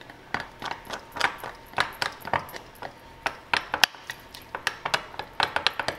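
Metal spoon clinking against a glass mixing bowl while stirring a thick powdered-sugar glaze: irregular light clinks that come faster in the second half.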